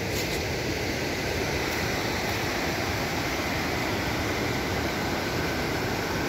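Steady rush of a fast river running over rocks, with white water.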